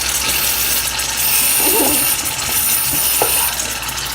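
Aerosol shaving cream can hissing as foam is sprayed out, the hiss growing sharper and brighter from about a second in to past the middle.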